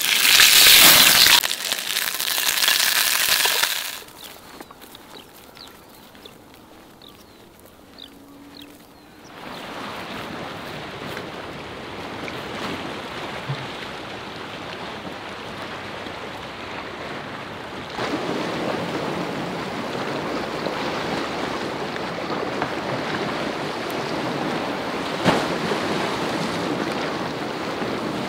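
Fish sizzling loudly in a frying pan over an open fire for the first few seconds, then a quieter stretch with faint ticks, then the steady wash of sea and wind along a rocky shore, a little louder from just past halfway.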